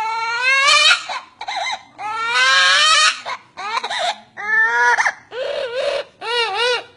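Amazon parrot mimicking a crying baby: a string of loud, wavering wails and sobs, several rising in pitch and breaking up at the end.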